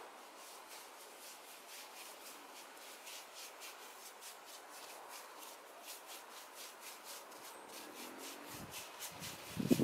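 A small hand tool scraping and rasping the surface of a cast cement baluster, in quick repeated strokes, about three a second, faint.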